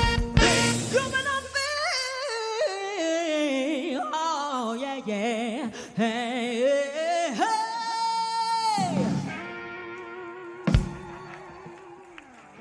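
Live soul band ending a song. After a full-band hit, a singer's wordless ad-lib of bending, wavering notes ends on a long held note that drops away. Then one sharp final hit lands and a sustained chord fades out.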